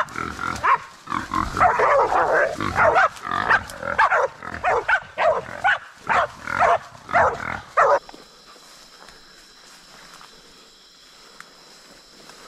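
Feral pig squealing in rapid, loud, repeated bursts while hunting dogs are on it. The squealing cuts off suddenly about eight seconds in, leaving only a faint steady high tone.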